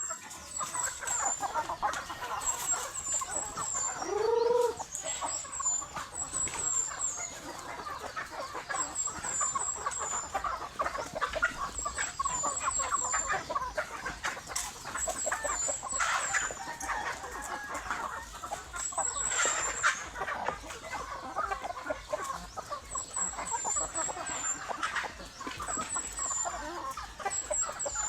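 A flock of chickens clucking continuously, many birds calling over one another, with one longer drawn-out call about four seconds in. Short groups of very high, thin chirps repeat every second or two throughout.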